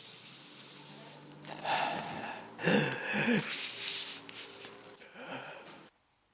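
A person gasping and wheezing for breath, with rough rubbing and rustling noises and a few strained groans. It cuts off suddenly near the end.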